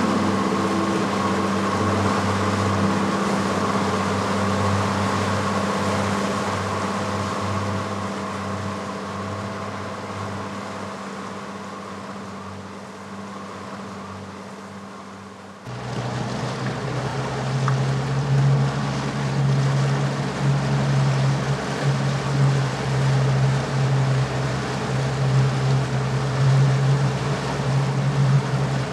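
A steady drone of fixed tones fades out slowly, then about halfway through cuts suddenly to a motorboat engine running steadily, with wind and water noise over it.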